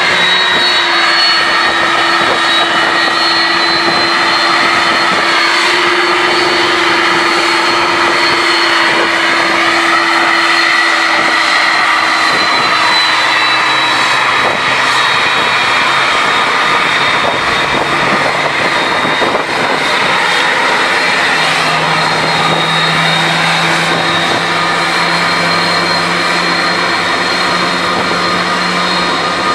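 Airbus A310's twin jet engines running at taxi power as it rolls past: a steady high whine over a loud rushing hum, the lower tones shifting partway through as the jet turns.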